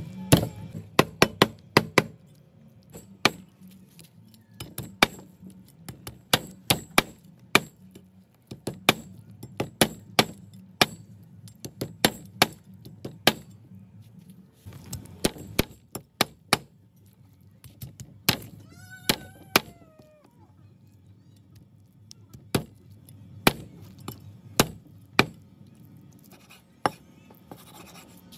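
Blade chopping food on a wooden cutting board: sharp single chops in irregular runs with short pauses. A short, high, wavering call comes about two-thirds of the way through.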